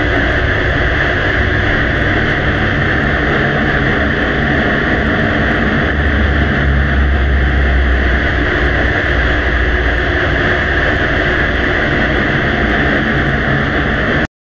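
Steady hiss and rumble of a faint recording boosted to a high level, with a low hum running under it. It cuts off suddenly near the end.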